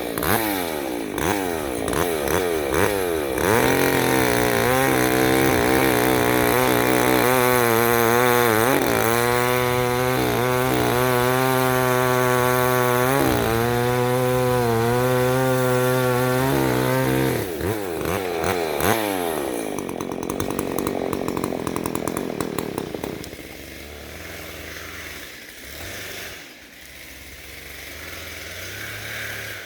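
Chainsaw revved up and down a few times, then held at full throttle for about fourteen seconds, its pitch dipping briefly twice as if it is bogging in a cut. The revs then fall and it settles to a quieter idle.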